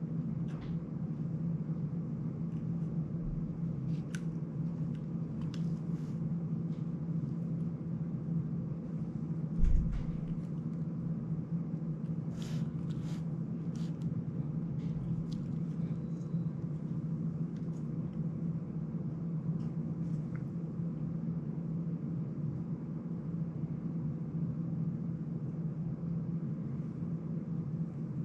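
Steady low room hum, with scattered light clicks and taps from handling small drone parts and wiring, and one low thump about ten seconds in.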